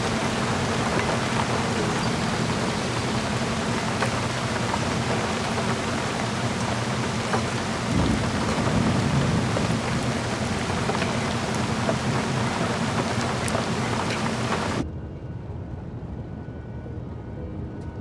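Steady heavy rain over a low sustained drone, with a low rumble swelling about eight seconds in. The rain cuts off abruptly about fifteen seconds in, leaving only quieter low tones.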